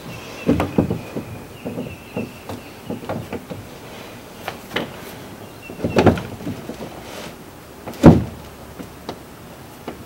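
A canoe hull knocking and sliding against the wooden 2x4 loading ramp and its steps as it is stepped up toward the roof rack: a run of knocks and scrapes, a heavier bump about six seconds in and the loudest thump about eight seconds in.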